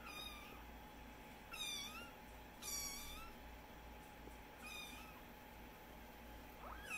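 Kitten meowing: five short, high-pitched mews, each about half a second long, spaced a second or more apart.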